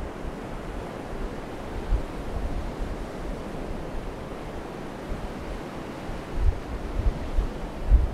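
Ocean surf breaking on the shore in a steady wash, with wind buffeting the microphone in low gusts that grow stronger near the end.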